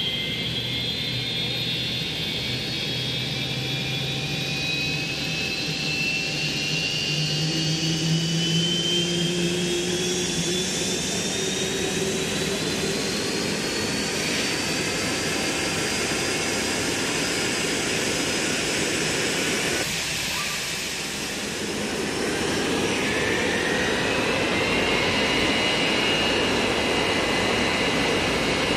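Hawker Siddeley Nimrod's Rolls-Royce Spey turbofan engines running on the ground, their high whine climbing steadily in pitch as an engine spools up, over a steady rush of jet noise. About twenty seconds in the sound dips briefly, then another whine rises and settles at a steady pitch.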